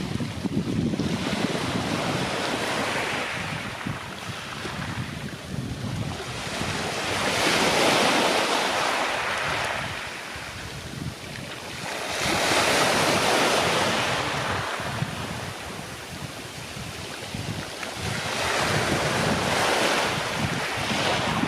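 Sea waves breaking and washing on the shore, the rush swelling and fading about every five to six seconds, with wind rumbling on the microphone.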